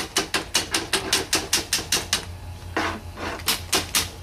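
Pneumatic impact wrench hammering on a stubborn 13 mm bolt, its blows coming slowly and evenly at about seven a second, then stopping about two seconds in, followed by a few short, noisier bursts. The tool is short of air, and a leaking air fitting is later blamed.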